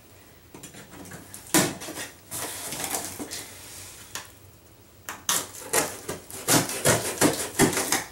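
A cardboard shipping box being opened and its contents handled: a knock about a second and a half in, a few seconds of rustling, then a quick run of knocks and rustles near the end.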